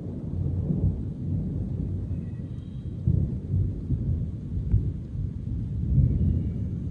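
Thunder rumbling on and on, a deep rolling rumble that swells and eases over several seconds.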